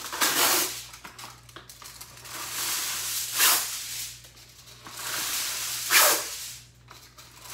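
Aluminium foil being torn off the roll and crinkled, sheet after sheet, with sharp tearing rips near the start, about three and a half seconds in and about six seconds in, and rustling between.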